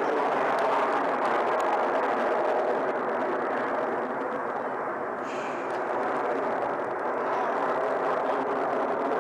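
Jet engines of a formation of aerobatic jets, heard from the ground as a steady noise while the formation climbs vertically and breaks apart.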